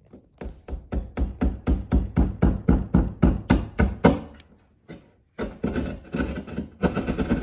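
A hand drywall saw cutting through drywall with quick back-and-forth strokes, about four to five a second. It stops briefly about four and a half seconds in, then resumes with faster, denser strokes.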